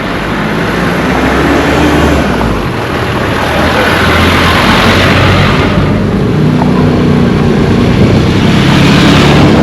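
Motor vehicles driving past close by on a street, engine and tyre noise swelling and fading as each goes by, about three passes.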